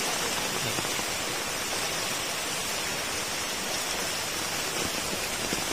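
Heavy rain falling in a steady downpour: an even, unbroken hiss.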